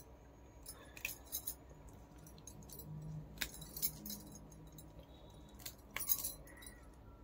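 Bangles clinking and stems snapping as leafy greens are picked by hand: scattered small, light clicks and jingles.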